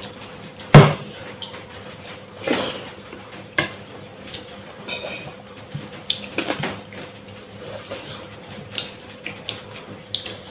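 Scattered clinks and taps of plates and bowls while food is eaten by hand, with one sharp knock about a second in.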